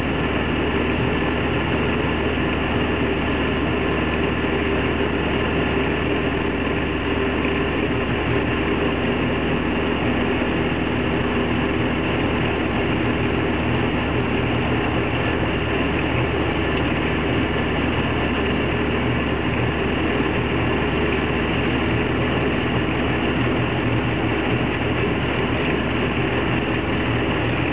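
Cabin noise of a 1933 Austin Seven RP saloon driving along at a steady speed: its small side-valve four-cylinder engine running under a dense haze of mechanical and road noise, heard from inside the car.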